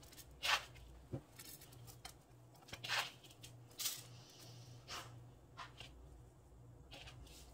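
Breadcrumb and Parmesan topping being sprinkled by hand from a plastic bowl onto sliced squash in a baking pan: a handful of brief, soft rustles and crumb patters a second or so apart. A faint low hum runs underneath.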